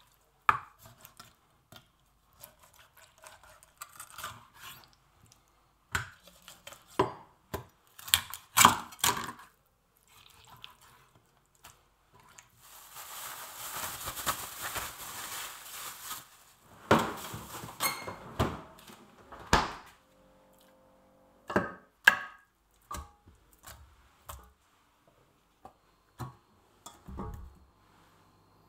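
Kitchen food-preparation sounds: irregular knocks and clatters of utensils and cookware, with a few seconds of rushing noise about halfway through.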